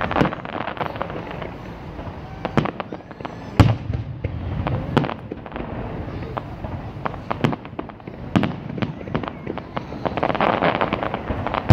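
Aerial firework shells bursting: a run of sharp bangs every second or two, the loudest about three and a half seconds in, followed near the end by a spell of dense crackling.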